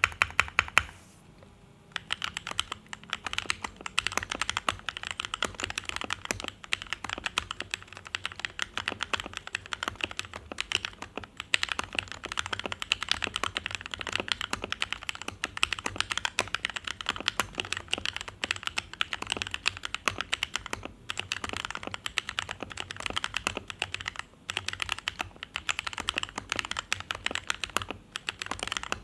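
Sades Tenka mechanical keyboard with foam-dampened case and stock Gateron CAP Yellow linear switches, being typed on. A few single key presses and a short pause come first, then about two seconds in the typing turns fast and continuous.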